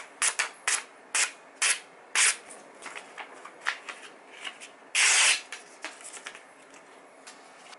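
Freshly sharpened knife slicing through a sheet of magazine paper as a sharpness test: a quick run of short, crisp cutting and rustling strokes, the longest and loudest about five seconds in, then lighter paper rustles.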